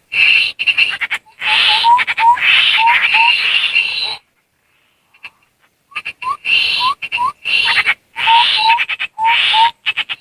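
Tepus landak babbler calls used as a bird lure: harsh, rasping chatter in two bouts of about four seconds, with a pause between. Short rising whistled notes are mixed in with the chatter.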